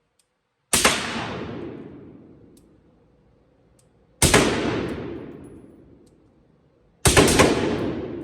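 Suppressed LWRC rifle fitted with a Q Trash Panda suppressor firing. Two single shots come a few seconds apart, then a quick string of several shots near the end. Each shot is followed by a long fading echo.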